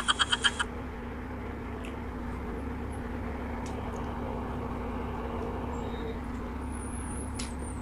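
A rapid pulsing cartoon sound effect ends about half a second in, then a steady low hum of room noise with a few faint clicks from eating noodles with wooden chopsticks.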